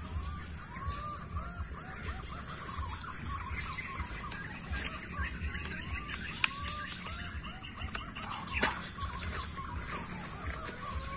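Tropical forest ambience: a steady high-pitched insect drone with many short bird chirps over it. Two brief sharp clicks stand out, about six and a half and eight and a half seconds in.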